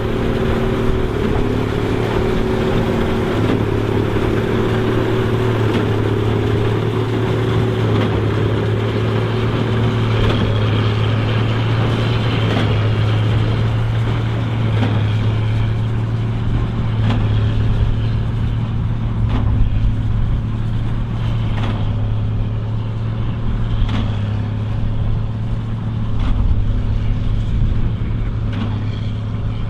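Case 2294 tractor's six-cylinder diesel running steadily under load while pulling a Massey Ferguson 190 big baler. Scattered short knocks sound in the second half.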